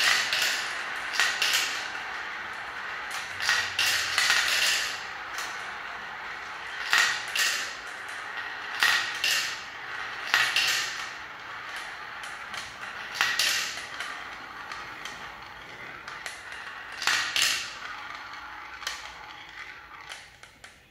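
Small plastic balls rolling and clattering through a plastic marble run's spiral funnel bowls and tubes, with many irregular clicks as they knock against the plastic and drop into the collection bowl. The rattling thins out and fades near the end.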